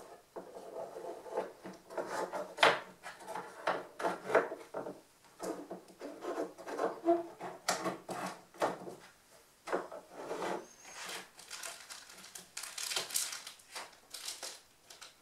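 Pieces of a light wooden boat stand being handled and slotted together: irregular knocks, taps and scraping of wood on wood. Near the end, rustling of a small plastic parts bag.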